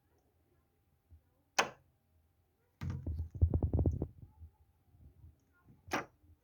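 Solenoid door lock clicking sharply as it is switched, twice about four seconds apart, with a loud rapid rattle of about ten beats a second lasting a little over a second between the clicks.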